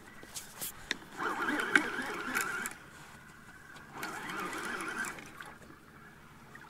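Fishing reel being cranked in two spells of about a second and a half each, winding in line on a hooked catfish, with a few sharp clicks.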